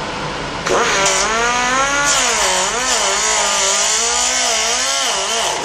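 Air die grinder with a cutoff wheel cutting into the plastic latch of a Dyson V8 battery. It starts under a second in with a loud whine that wavers and dips in pitch as the wheel bites into the plastic, over a high hiss.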